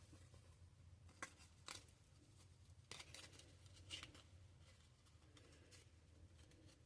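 Near silence over a low hum, broken by a few faint short taps and rustles of trading cards being handled.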